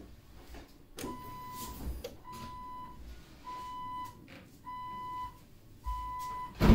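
An electronic beeper sounds five even beeps at one pitch, each about half a second long and a little over a second apart. A sharp knock, the loudest sound, comes right at the end.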